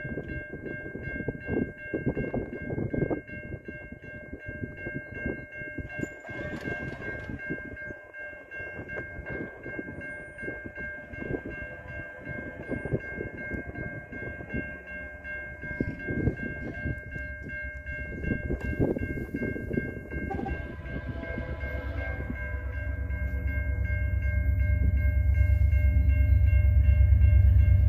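A level-crossing warning bell starts ringing as the crossing activates and rings steadily on. From about two-thirds of the way through, the low rumble of approaching VIA Rail F40PH-2D diesel locomotives grows steadily louder and overtakes the bell.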